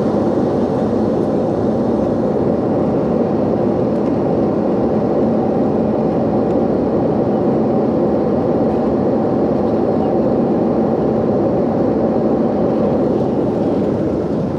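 Jet airliner cabin noise in flight: a steady, even rush of engine and airflow noise, heard from a window seat.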